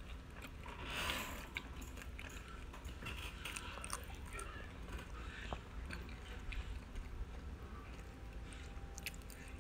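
Someone chewing a mouthful of crunchy cinnamon cereal squares in almond milk: soft crunching with many small scattered clicks, a little louder about a second in.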